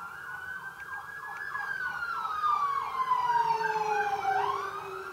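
Emergency vehicle sirens. One wails slowly down in pitch and swings back up near the end, over another siren yelping in quick sweeps about three times a second.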